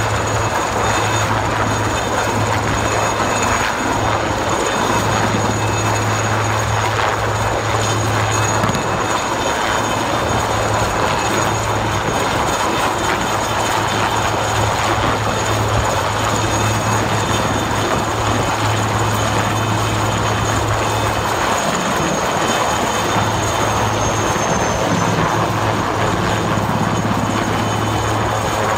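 IAR 330 Puma helicopters hovering low overhead, a steady rotor and turbine noise with a thin high whine running above it. A low hum in the noise drops out briefly about two-thirds of the way through.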